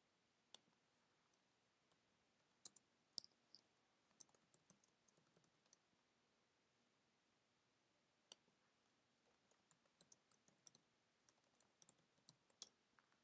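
Faint computer mouse clicks and keyboard keystrokes: scattered single clicks, a quick run of taps about five seconds in, and another run of keystrokes near the end.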